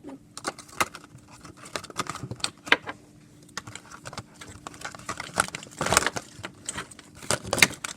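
Small plastic glitter containers being handled and put away: irregular clicks, taps and rattles with some crinkling, loudest about three quarters of the way through.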